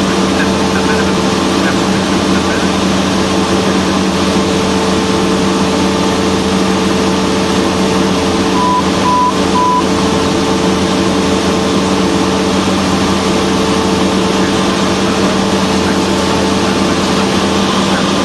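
Cessna 172's piston engine and propeller droning steadily. About nine seconds in, three short, evenly spaced electronic beeps sound over the drone.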